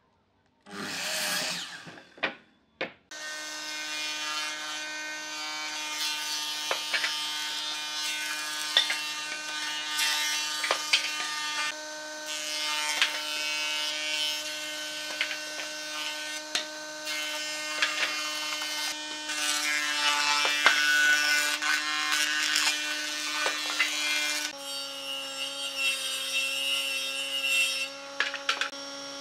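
A Makita sliding miter saw cuts through a board in a burst of about a second. Then a combination woodworking machine (planer-thicknesser with saw table) runs steadily, its motor hum overlaid with the noise of wood being fed and cut and scattered knocks. The hum drops in pitch near the end.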